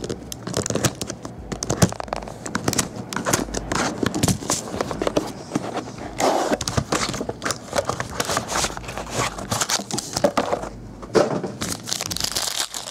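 Hands opening a sealed trading-card box: a utility knife scraping along the box's seam and the box being handled, then a card pack's wrapper crinkling and tearing open. Irregular scratchy rustles and small clicks throughout.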